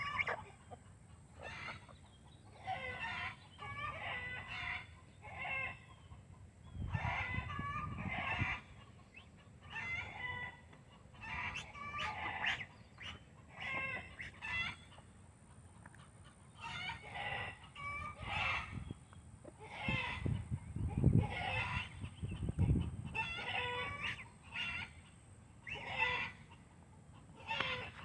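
Backyard chickens calling over and over in short bursts: hens clucking, with roosters crowing.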